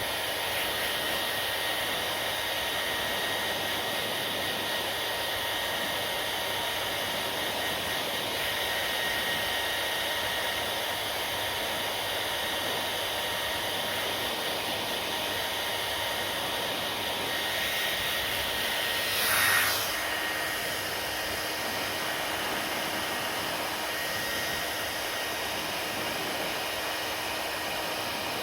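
Hair dryer blowing steadily, a rushing air noise with a faint high whine. About two-thirds of the way through there is a brief louder surge of air noise.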